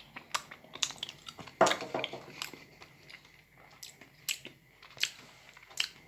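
A person eating soft, slimy microwaved kiwi: irregular sharp clicks and wet mouth sounds of chewing, loudest about one and a half seconds in.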